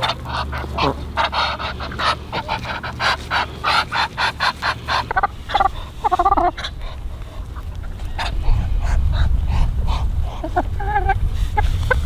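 Farmyard ducks and chickens calling: a quick run of short calls, several a second, for about five seconds, then a few longer, drawn-out calls around six seconds in and again near the end. A low rumble grows louder from about eight seconds in.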